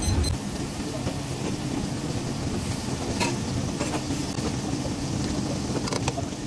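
Potato and cauliflower sizzling softly in a stainless steel pan over a low gas flame, a steady hiss with a low rumble. A few clicks and scrapes of a spoon against the pan as it is stirred, about three seconds in and again near the end.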